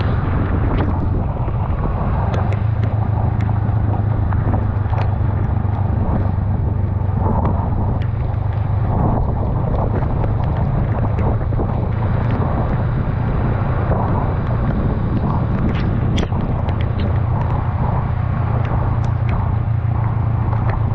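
Honda Rebel 500's parallel-twin engine running at a steady cruising speed, a constant low drone under wind rush and the hiss of tyres on a wet road. Scattered small ticks of rain hitting the camera.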